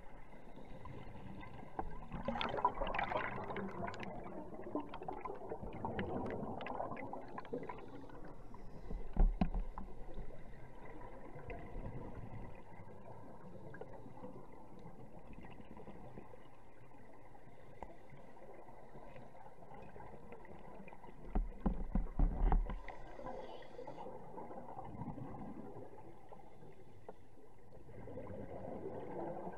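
Underwater sound of a scuba dive: exhaled bubbles gurgling in swells every few seconds over a steady hiss, with a few dull low thumps about nine seconds in and again past twenty seconds.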